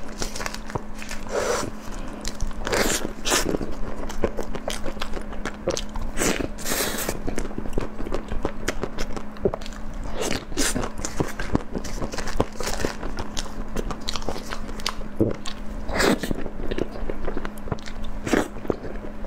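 Close-miked eating of soft round buns: plastic film crinkling as it is peeled off a bun, then bites and wet chewing mouth sounds, with short clicks and smacks throughout. A faint steady hum runs underneath.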